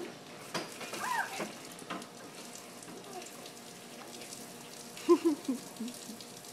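Water running down a pool slide from a garden hose, a faint steady trickling hiss, with a few brief voice sounds about a second in and again around five seconds in.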